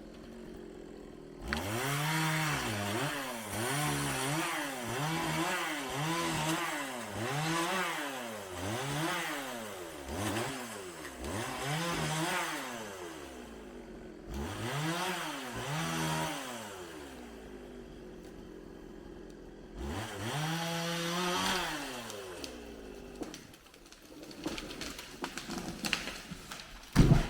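Chainsaw cutting a tree during felling, its engine revving up and dropping back about once a second in three spells with brief lulls between them. A sharp loud knock comes near the end.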